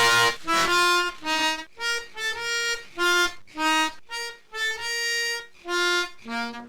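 Harmonica playing a tune of short, separate notes, about two to three a second.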